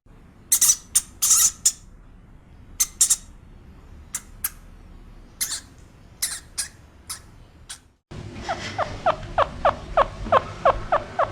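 A small rodent making short, very high squeaks, scattered and irregular. After about eight seconds it gives way to a bird's rapid series of steeply falling calls, about four a second.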